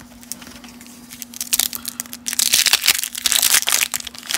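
Plastic wrapper of a 1991 Topps Traded baseball card pack crinkling and tearing as it is ripped open by hand. It starts about a second in and gets louder and denser past the halfway point.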